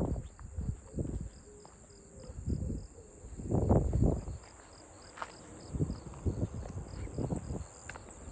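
Insects chirping steadily outdoors, a continuous high trill with a faster pulsing chirp beneath it, over irregular low rumbles that are loudest about three and a half seconds in.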